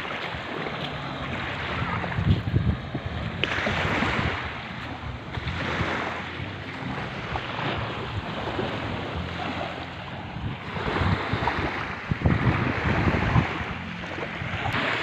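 Small waves lapping and washing up on a gravelly shore, with wind buffeting the microphone in gusts.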